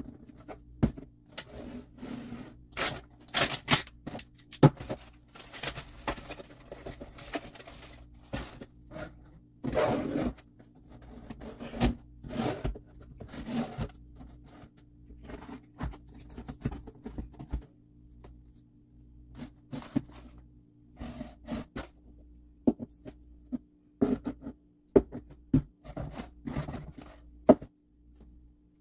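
Plastic condiment bottles and jars being picked up, set down and slid along a pantry shelf: irregular knocks, taps and scrapes, thick for the first half and sparser after. A faint steady low hum runs beneath.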